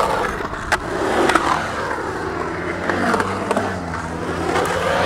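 Skateboard wheels rolling on the smooth concrete of a skatepark bowl, a steady rumble with a low hum and a few sharp clicks along the way.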